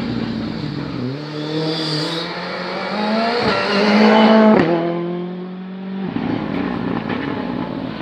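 A Ford Fiesta rally car's engine runs hard as the car comes up and passes close by. The note climbs and is loudest about four seconds in, with two sharp cracks around that moment, then falls in pitch as the car pulls away.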